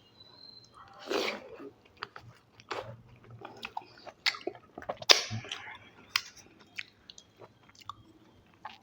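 A person chewing and biting food close to the microphone, with irregular crisp crunches and wet mouth clicks; the sharpest crunch comes about five seconds in.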